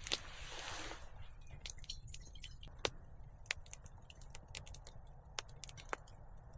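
Wood campfire crackling, with irregular sharp pops and snaps spaced a second or so apart over a quiet low hiss.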